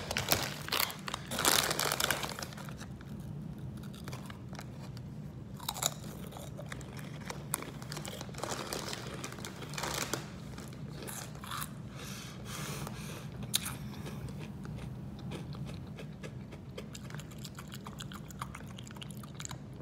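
A person biting and chewing crunchy Hot Cheetos close to the microphone: loud crunches in the first two seconds, then steady chewing with scattered smaller crunches.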